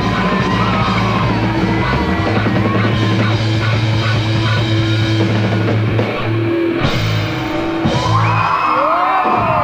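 Live rock band playing loud, with bass, guitar, drums and a yelled vocal. About eight seconds in, the audience joins with screaming and cheering.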